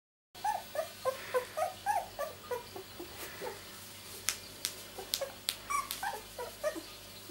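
Two-week-old miniature labradoodle puppies whimpering and squeaking: a quick run of short cries that bend up and down in pitch, thickest in the first two seconds. A few sharp clicks fall in the middle.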